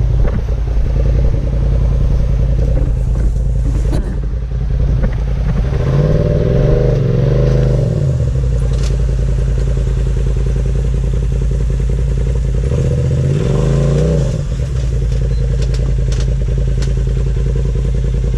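Off-road vehicle's engine idling steadily, revved up and back down twice as it works the rock climb, with a few scattered clicks.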